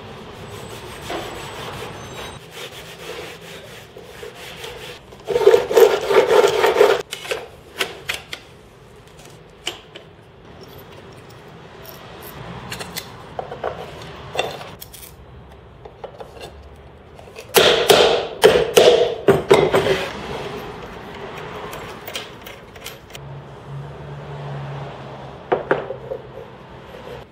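A cloth rubbing wax into a white-faced chipboard board, in two brisk spells of quick back-and-forth strokes about five and eighteen seconds in. Scattered knocks and clicks come from parts being handled on the bench.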